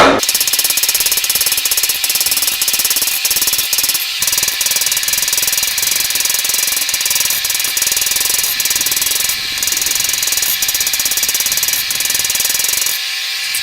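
A power hammer pounding hot steel in a fast, steady run of blows, with the metal ringing; it eases off about a second before the end.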